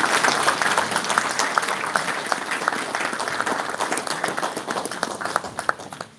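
Audience applauding: a dense patter of many people's hand claps that thins to a few scattered claps near the end.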